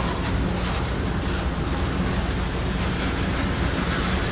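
Steady rumble from HO-scale model trains and slot cars running on a layout, with a constant low hum.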